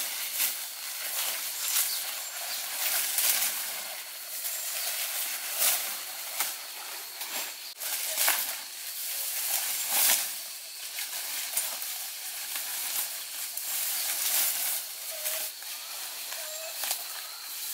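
Rustling and swishing of grass and broad leafy stems being pulled and bundled by hand, in repeated bursts. A thin steady high tone runs underneath.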